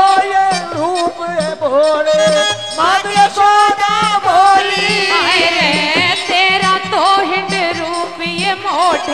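Indian folk devotional music: a wavering melody line over a steady hand-drum beat of about two strokes a second, an instrumental passage between the sung verses of a bhajan.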